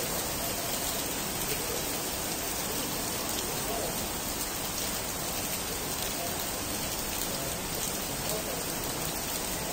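Heavy rain falling steadily on stone paving, a dense, even hiss of drops.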